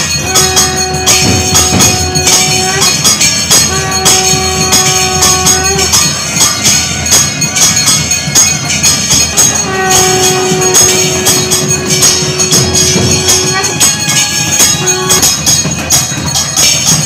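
Temple ritual music during a lamp aarti: fast, dense clanging of bells and cymbals, over which a wind instrument sounds one steady held note three times for a few seconds each, and once briefly near the end.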